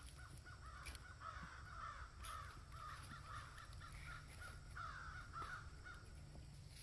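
Monkey calling: a string of short, high chattering calls, one after another, over a steady low rumble.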